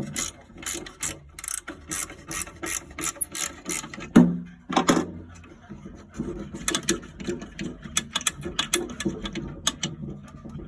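Hand ratchet clicking in quick, even strokes of about four to five a second. About four seconds in there is a louder metallic clunk with a short squeal, and then the clicking goes on.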